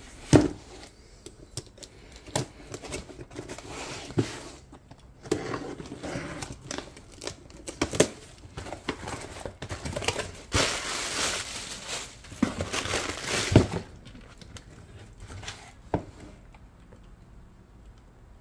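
Cardboard shipping box being opened and unpacked by hand: taped flaps pulled open with scraping, tearing and sharp knocks, and plastic air-pillow packing rustling and crinkling. The longest stretch of crinkling comes about two-thirds of the way in.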